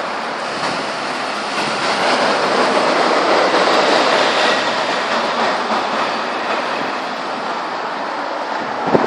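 Gale-force wind rushing loudly and steadily, swelling in a gust partway through, with a single short knock near the end.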